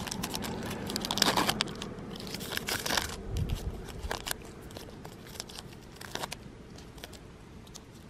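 Paper wrapper and backing strips of an adhesive bandage crinkling and tearing as they are peeled open by hand. The rustle is densest in the first three seconds, then breaks into scattered small crackles that stop about six seconds in.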